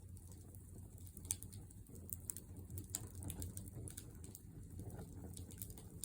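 Wood fire burning in a fire pit, crackling with irregular sharp snaps and pops over a low steady rumble.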